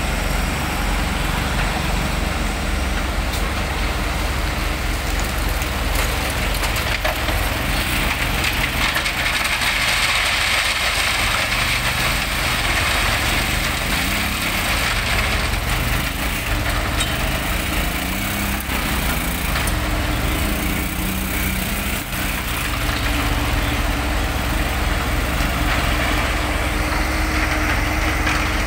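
Diesel engines of a Hyundai excavator and a concrete mixer truck running steadily, the engine note rising and falling in places as the excavator works. Gravel is poured from the excavator bucket into the mixer's hopper.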